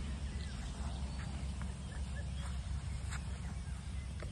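Outdoor background noise: a steady low rumble with a few faint, short ticks scattered through it.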